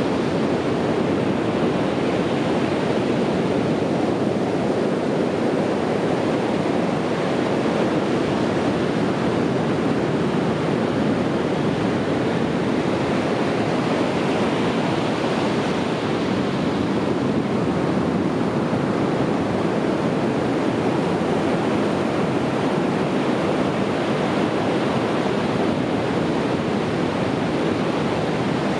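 Sea waves breaking on a beach, a steady wash of surf that swells a little about halfway through.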